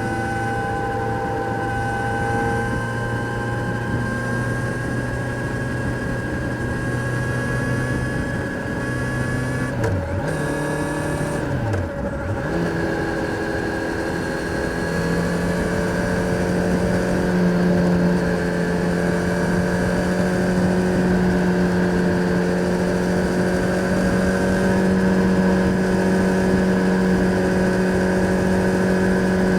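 Kawasaki Z900's inline-four engine running under way, with wind noise over it. The engine note drops sharply twice around ten to twelve seconds in, as with gear changes, and then holds steady at clearly higher revs.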